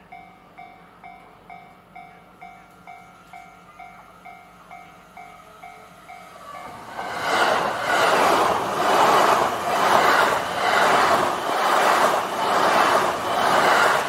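A Japanese level-crossing warning bell dings about twice a second. About seven seconds in, a JR East E261 series Saphir Odoriko electric limited express passes close by, its loud wheel and rail noise pulsing about once a second as the cars go by and drowning out the bell.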